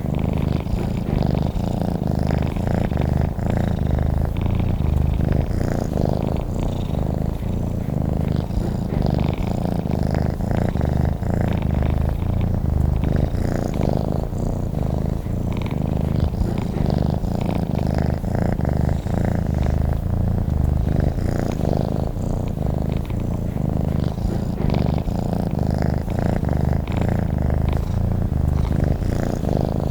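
A domestic cat purring steadily, a continuous low rumble with a fast even pulse.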